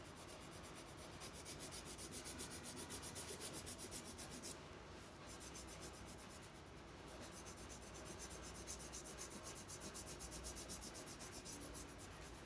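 Crayon scratching on paper in quick, rhythmic back-and-forth strokes as an area is coloured in, faint, with a short pause about halfway through.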